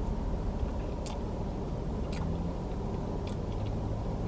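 Steady low rumble of a car idling with the air conditioning running, heard inside the cabin. A few sharp clicks of a spoon digging into a carton of ice cream sound about once a second.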